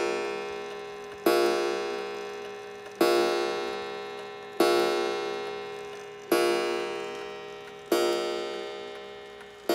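Antique Waterbury mantel clock striking on its coiled wire gong: the hammer hits the coil about every one and a half seconds, and each stroke rings out with a bright, many-toned shimmer that fades before the next. One stroke is already ringing at the start, and six more follow in an even count, as the clock strikes the hour.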